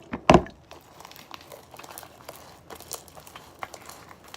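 Handling noises from making slime in a bowl: a single knock about a third of a second in, then scattered small crackles and clicks.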